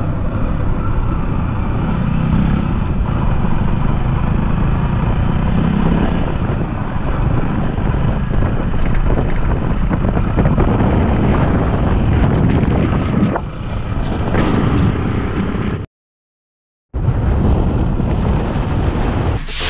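Motorcycle being ridden along a road, its engine mixed with steady road and wind noise on the microphone. The sound cuts out completely for about a second near the end.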